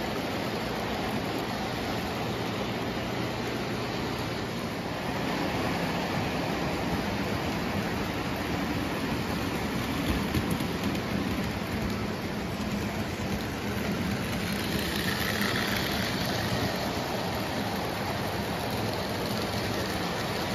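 Lionel O gauge toy trains running on metal three-rail track: a steady rumble of wheels and electric motors, rising about fourteen seconds in as a small steam locomotive hauling boxcars passes close by.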